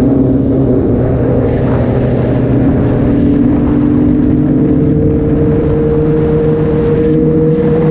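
Sport motorcycle engine running under way at a steady level, its note sagging slightly at first and then climbing slowly from about the middle as the bike speeds up, with wind rush over it.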